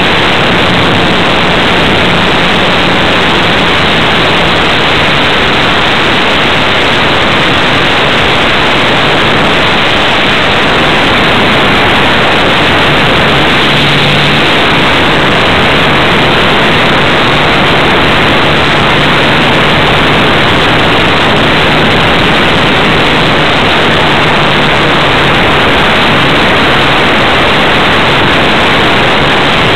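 Loud, steady rushing noise of air over the onboard camera of a radio-controlled model airplane in flight, with the plane's motor droning faintly underneath; the drone drops a little in pitch early on and swells briefly about halfway through.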